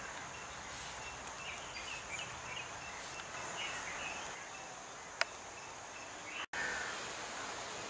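Rural outdoor ambience: a steady high insect drone with scattered bird chirps. A single sharp click comes about five seconds in, and the sound cuts out for an instant a little later.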